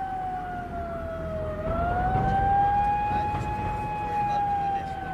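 A siren wailing, its pitch slowly sinking and then rising again about a second and a half in, over a low rumble.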